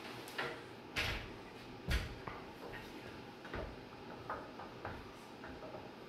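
Emerson Heat Fan Universal Series 'Blenderfan' ceiling fan running with its blades a little wobbly and not perfectly balanced. A series of irregular clicks and knocks comes through, the loudest about one and two seconds in.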